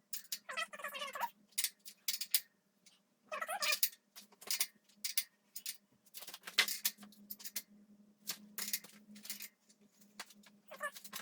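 A cat meowing twice, with sharp clicks and clatter running throughout.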